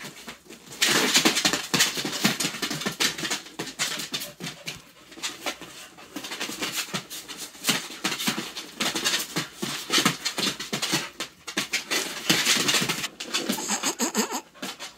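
A pit bull and a Plott hound play-fighting: an uneven run of scuffling, knocks and short, rough dog noises, loudest about a second in and again near the end.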